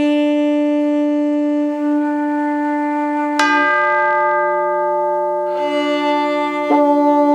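Musical instrument notes of about the same pitch played one after another to show different timbres: a steady held note with many overtones, then notes with sharp attacks that ring and fade, about three and a half seconds in and again near the end.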